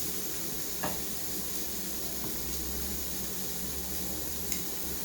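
Meat and sausage sizzling on a tabletop barbecue grill, a steady hiss with a couple of light clicks, about a second in and near the end.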